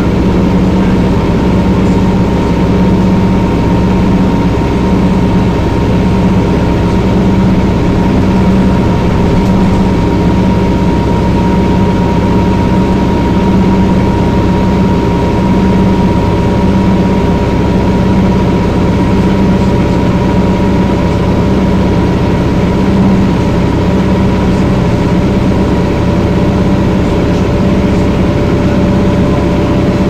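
1994 TMC RTS transit bus's Detroit Diesel Series 50 four-cylinder diesel running steadily, heard from on board: a loud, even engine drone with a steady whine above it.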